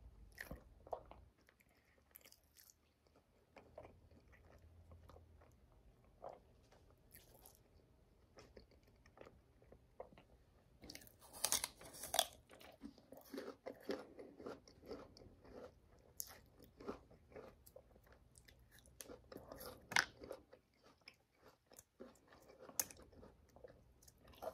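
A small apple being bitten and chewed close up: crisp crunches and wet chewing, with the loudest bites about halfway through and a sharp one later on.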